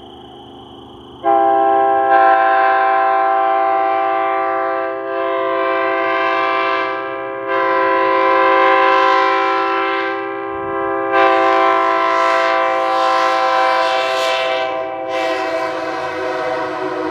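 A multi-chime locomotive air horn sounding a steady chord in a string of about five long blasts, starting about a second in, the blasts running almost into one another with a short break around ten seconds in.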